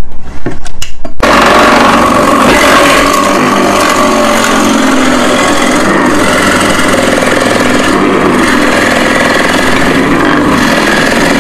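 A few clicks, then about a second in an electric shaved-ice machine starts up. Its motor and blade run steadily as a block of ice is pressed down onto the blade and shaved into fine snow ice.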